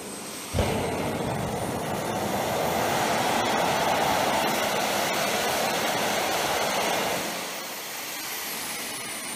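Small RC model jet turbine running flat out, a loud rushing exhaust with a thin high whine that climbs as it spools up. Near the end it throttles back and the whine slides down.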